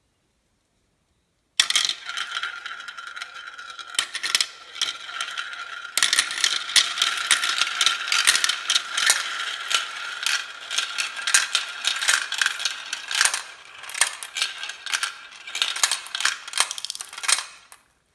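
Stone marbles rolling down a marble run on a Lego tower, clacking against each other and the track in a dense, fast stream of clicks over a steady ringing hum. It starts abruptly about a second and a half in, grows busier a few seconds later, and dies away just before the end.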